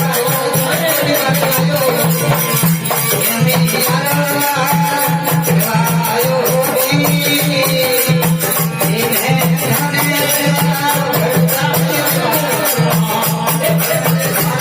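Instrumental passage of a Rajasthani folk devotional bhajan: a wavering melody over a steady, fast rhythmic pulse, with jingling rattle-like percussion.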